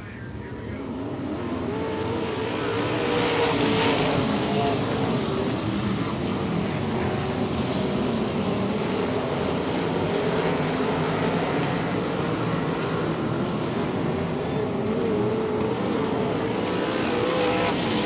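Several wingless 360 sprint cars' V8 engines at racing speed, their pitch rising and falling as they lap. The sound builds over the first couple of seconds, then holds steady.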